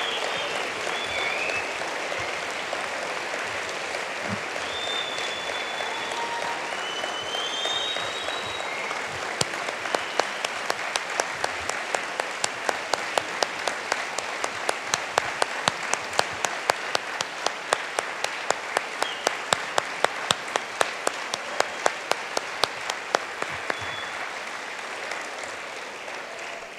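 Large audience applauding, with a few short high whoops in the first several seconds. From about nine seconds in, sharp, even claps about three a second stand out over the applause, and it all dies away near the end.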